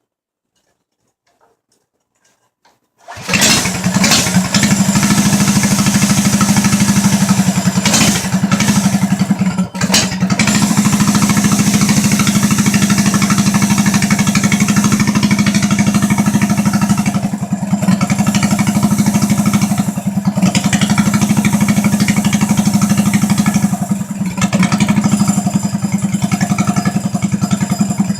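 Near silence for about three seconds, then a homemade trike's 7 hp single-cylinder small engine comes in abruptly and runs steadily and loudly, with brief dips in speed now and then. This is its first run after a carb cleaning and fresh gas.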